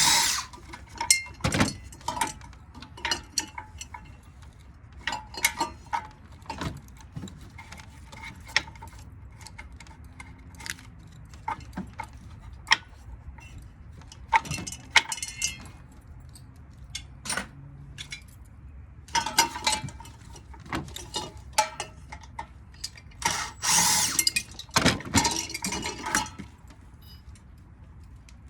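Tools and metal parts of a ceiling-fan motor clicking, knocking and clinking as the motor is taken apart, with a few louder rattling stretches of about a second, the longest near the end.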